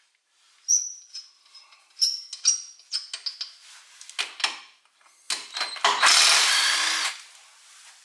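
Cordless impact wrench taking the lug nuts off a car's front steel wheel in short bursts, with sharp metallic clinks of socket and nuts in between. The loudest, longest burst of the wrench comes about six seconds in and lasts about a second.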